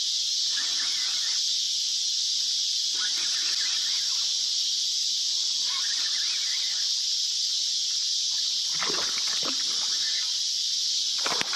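Steady high-pitched insect chorus buzzing without a break, with a few brief rustling or handling sounds near the end.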